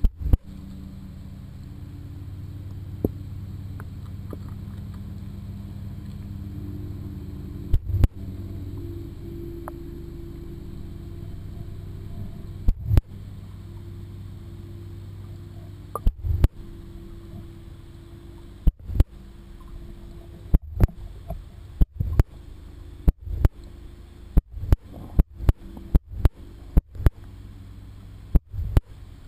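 Underwater recording: a steady low hum with sharp knocks, only a few at first and then one or two a second over the last ten seconds or so.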